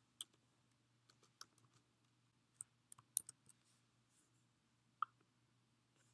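Faint, scattered computer keyboard keystrokes as code is typed, in small clusters with pauses and a single click about five seconds in, over a low steady hum.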